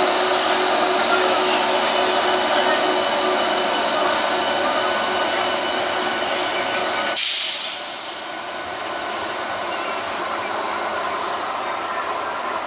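Approaching ICF MEDHA three-phase electric multiple unit train running: a steady hiss with faint steady whine tones in it. About seven seconds in, a short loud burst of hiss comes, and the sound then drops quieter.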